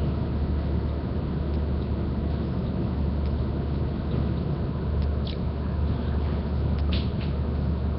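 Steady low hum with a haze of background hiss, picked up by a webcam microphone, with a few faint clicks about five and seven seconds in.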